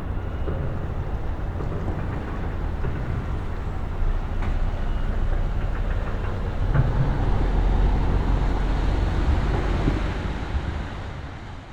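Motor traffic noise: a steady low rumble that swells in the second half as a vehicle passes, then fades near the end. It is the man-made noise that drowns out the forest soundscape.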